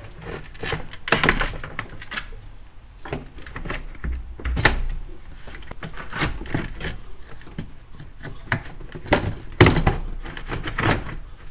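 Plastic radiator fan shroud knocking and clicking against the radiator and surrounding parts as it is pushed down and worked into its bottom mounting tabs: irregular knocks, loudest about halfway through and twice near the end.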